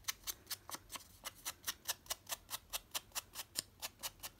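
Even, rapid tapping, about six taps a second: an ink blending tool being dabbed onto paper to apply black ink.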